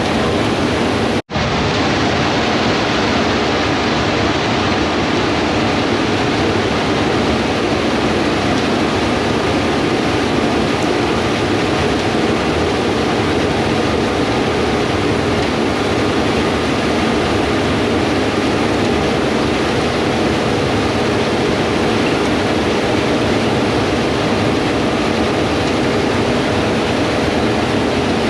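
Steady drone of harvest machinery working the field: an even, dense rush with a faint engine hum running through it. It breaks off for a moment about a second in.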